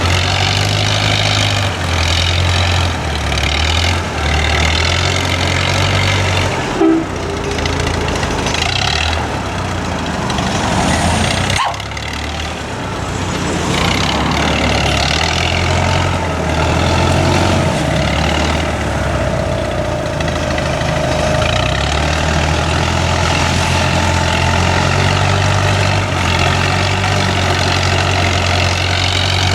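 Heavy diesel engine running steadily at low revs, with a brief dropout about twelve seconds in.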